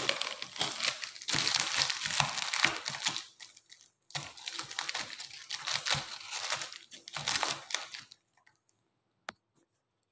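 Plastic packaging and cloth being handled, crinkling and rustling in irregular bursts that stop about eight seconds in, followed by a single sharp click near the end.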